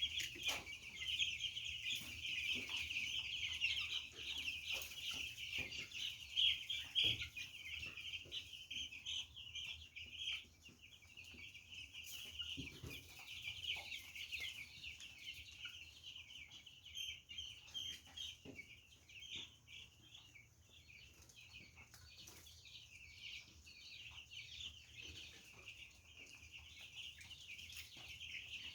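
A brood of week-old chicks peeping constantly, many high calls overlapping into a dense chorus that is fullest for the first ten seconds or so and then thins out.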